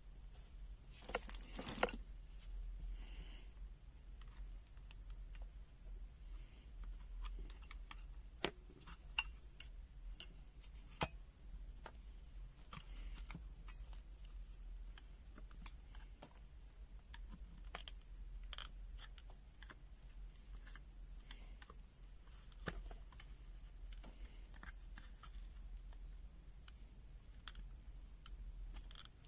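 Scattered small clicks and taps of hands handling a multimeter's plastic case and internal parts, with a few louder clicks about two seconds in and around eight to eleven seconds in, over a faint low hum.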